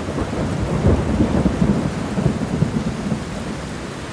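Rain with rolling thunder: a steady rushing noise over a low rumble that swells about a second in and eases off toward the end.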